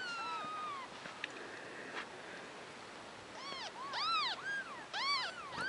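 Newborn kitten mewing in high-pitched cries as it is handled: one drawn-out falling call at the start, then a run of short rising-and-falling mews from about three and a half seconds in, loudest around four and five seconds.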